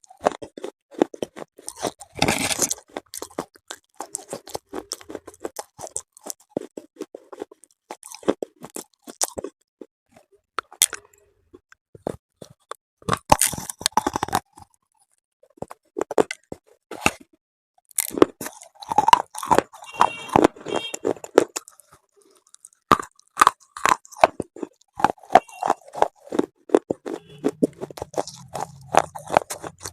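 Brittle chalky mineral pieces of the slate-pencil kind being bitten and chewed close to the microphone. Many sharp crunches come in irregular runs, with a few short pauses between mouthfuls.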